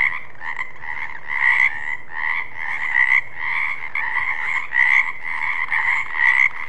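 Frogs croaking: repeated, overlapping calls in a continuous chorus, with louder croaks standing out about once a second.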